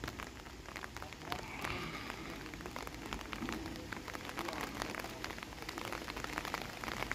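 Light rain pattering: many small irregular ticks over a faint steady hiss, with faint voices now and then.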